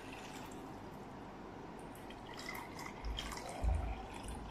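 Water poured from a drinking glass into a large bowl of water, splashing and dripping, with a few dull bumps about three and a half seconds in.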